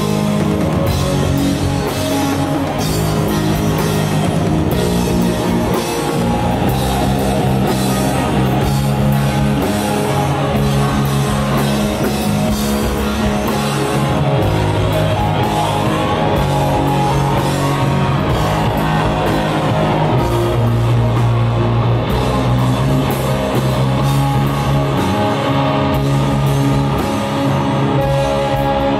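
Live rock band playing loudly: distorted electric guitars over bass and a drum kit, with a steady driving beat.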